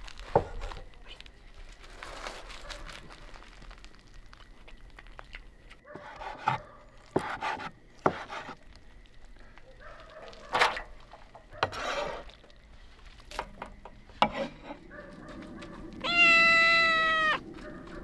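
Scattered knocks and light clatter, then a cat meowing once, long and steady, near the end.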